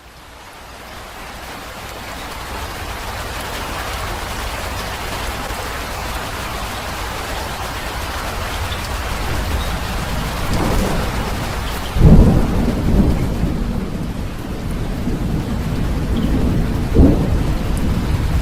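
Steady rain fading in over the first few seconds, then thunder: a low rumble building from about ten seconds in, a sudden loud thunderclap about twelve seconds in, and another clap near the end.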